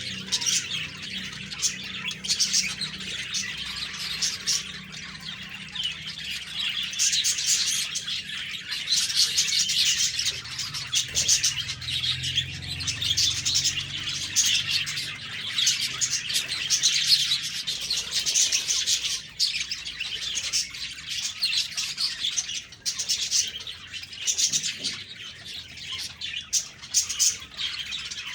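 Budgerigars chirping and warbling continuously, a dense run of quick high chirps with no pauses.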